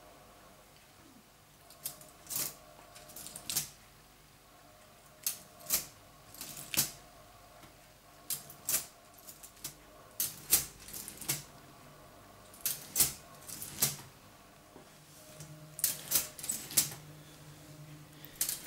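Meccano ratchets clicking as a hand lever advances the machine's word-label caterpillar tracks one link at a time. The sharp metallic clicks come in groups of two or three, every second or two.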